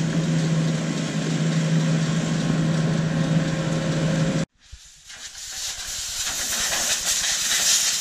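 Pressure washer spraying water, a steady hiss, with an engine humming steadily under it. About four and a half seconds in the sound cuts off suddenly, then the spray hiss builds back up and holds.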